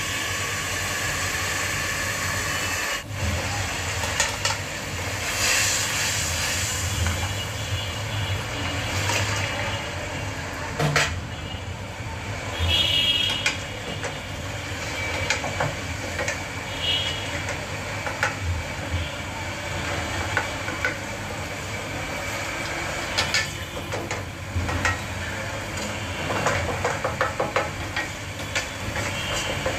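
Steady hiss of food cooking on a gas stove, with a wooden spatula scraping and knocking against a metal kadai as vegetables are stirred.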